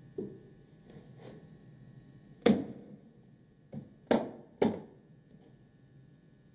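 A few sharp knocks and clunks as a plastic tub is set down and handled on a metal-topped work table. The two loudest come about two and a half and four seconds in, with smaller knocks around them.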